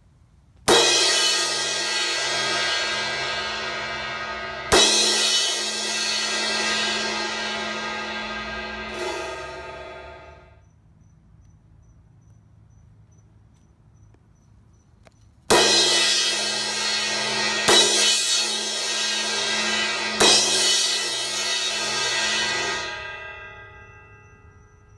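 Crash cymbal struck twice, each hit left ringing, with the ringing ending about ten seconds in. After a pause, it is struck three more times, now repaired with its crack cut out as a small slot at the edge, and the ringing dies away near the end.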